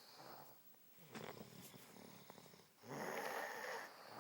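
A sleeping woman snoring: a loud, harsh snore about three seconds in, with a softer breath sound before it.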